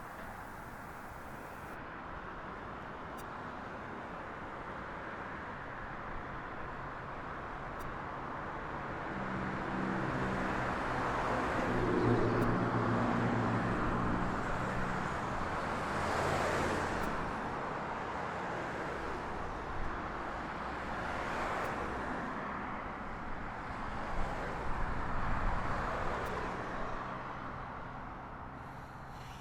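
A Boeing 737 jet airliner passing on its landing approach: the engines' rumble and whine swell up, peak about twelve to seventeen seconds in with a low hum under the roar, then slowly fade.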